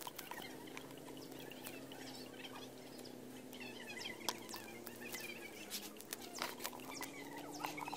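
Small live fish flapping and ticking in a wet cast net and a plastic bucket as they are picked out by hand, making scattered short clicks, over a faint steady low hum with a few faint chirps.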